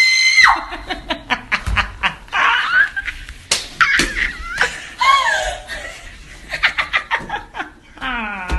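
Women laughing hard, with bursts of rapid cackling and squeals, just after a high held scream cuts off at the start.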